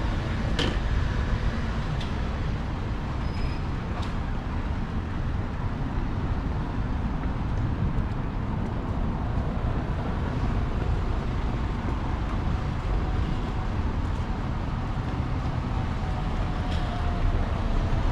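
Street ambience with a steady low rumble of traffic and a few faint clicks.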